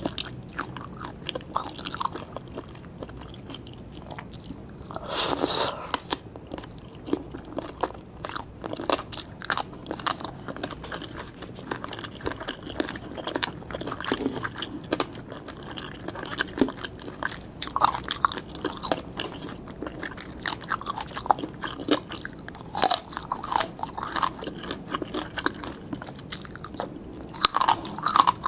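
Close-up chewing and crunching of spicy green papaya salad, crisp bites coming in an irregular run, loudest about five seconds in.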